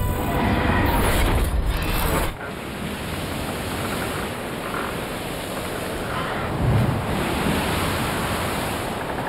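Title-sequence sound effect of rushing, surf-like noise. It is loud at first, drops sharply a little over two seconds in, then carries on as a steadier wash with a brief low surge near the end.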